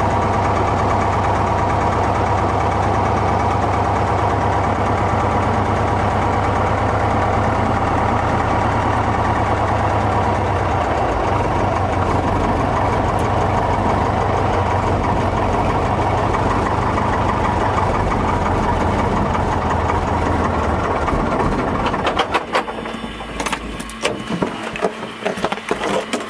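Cessna 150's four-cylinder Continental O-200 aircraft engine running steadily, its low drone dropping away about 22 seconds in, followed by a few irregular clicks and knocks.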